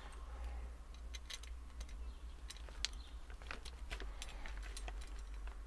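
Small metal fittings (nuts and kit parts) clicking and clinking lightly and irregularly as they are picked out and handled in the fingers, over a steady low hum.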